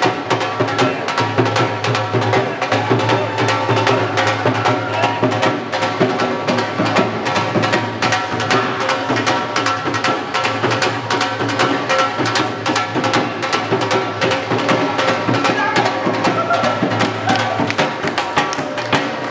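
Bhangra music driven by a dhol drum beaten in a fast, steady rhythm, over a sustained melody.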